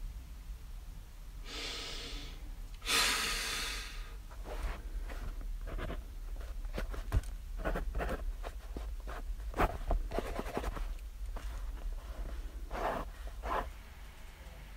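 Two long, heavy breaths out, then a pen scratching on the paper of a test booklet in many short strokes, with a steady low hum underneath.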